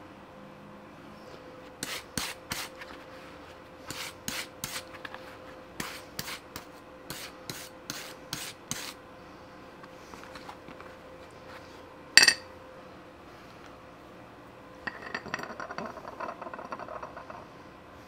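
Handling a freshly cast aluminum ball with steel pliers: a run of sharp metallic clicks and taps in small clusters, then one loud clank with a short ring as metal is set down on a steel plate. Near the end comes a few seconds of quick rubbing, fitting leather work gloves being pulled off.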